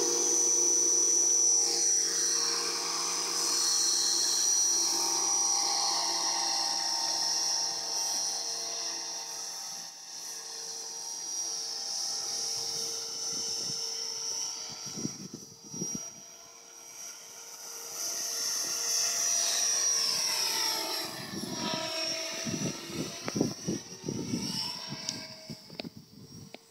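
Align T-Rex 450 electric RC helicopter in a scale Hughes 500 fuselage flying: a steady high-pitched whine from the motor and rotor head over the blade noise. Its level falls as it climbs away and rises again. About three-quarters of the way through, its pitch sweeps down and back up.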